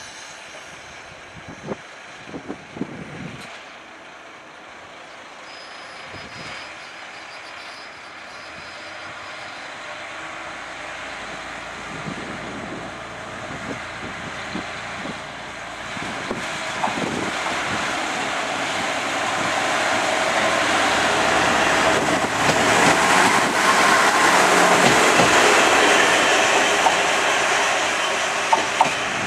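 Kashima Rinkai Railway 6000-series single-car diesel railcar approaching on the line. Its engine and wheel noise grow steadily louder, peaking about three quarters of the way through, with a few sharp clicks.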